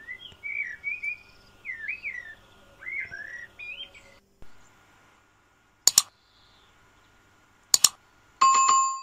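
Birds chirping in short rising and falling calls for about the first four seconds. Then two quick double clicks, and near the end a bright bell ding: the click and bell sound effects of a subscribe-button animation.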